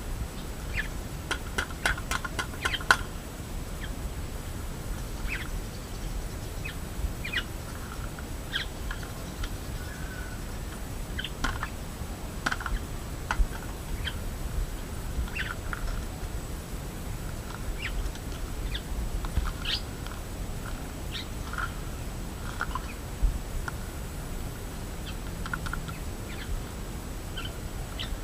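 Scattered short, high bird chirps over a steady low rumble, with a quick run of sharp clicks about two to three seconds in.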